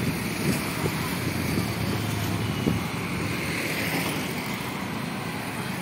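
Road traffic noise from the street beside the river, with wind rumbling on the microphone and an engine hum briefly standing out about two seconds in.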